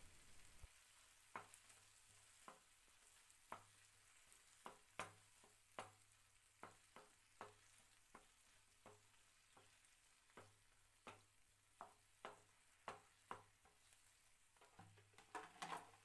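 Wooden spatula stirring chopped tomatoes and green chillies in a nonstick frying pan, knocking and scraping against the pan in quiet, irregular strokes about once or twice a second, quicker near the end, over a faint sizzle.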